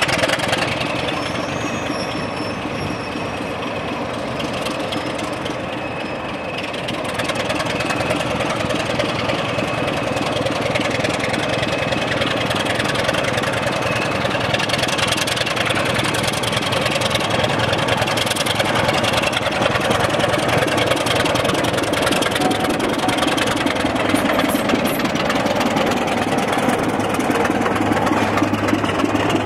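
A diesel locomotive's engine running as it hauls a passenger train slowly through a station, growing louder from about seven seconds in as it draws near and passes.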